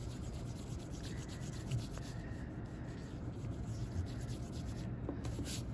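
Rubber eraser rubbing back and forth on paper, scrubbing out pencil lines.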